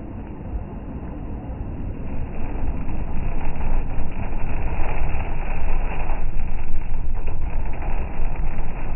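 Vehicle driving: a loud, steady rumble of engine, road and wind noise that grows louder about two seconds in.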